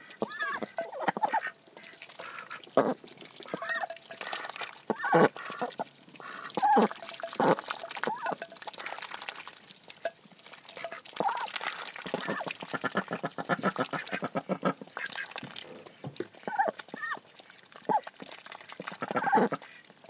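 A pair of Khaki Campbell ducks feeding from a dish of vegetables and mealworms: rapid wet clicking and dabbling of their bills, broken every second or two by short quacking calls.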